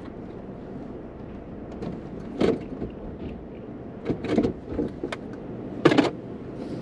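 A few short knocks and rustles of a person shifting about inside a parked car's cabin, over a low steady hum; the loudest knocks come near the end.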